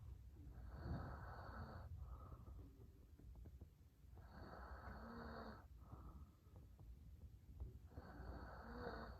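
A sleeping man snoring faintly: three long snoring breaths about three and a half seconds apart, each with a low buzz and a faint high whistle, each followed by a shorter, softer breath.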